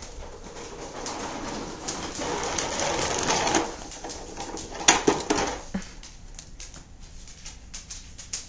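Toy dump truck being pushed and rolling across the floor, with a sharp knock about five seconds in. A toddler makes brief low cooing noises right after the knock.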